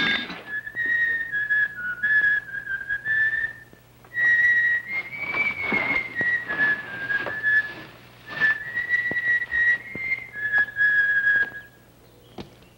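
A person whistling a tune in three phrases, the pitch stepping up and down, with a sharp thump at the start and scattered light knocks.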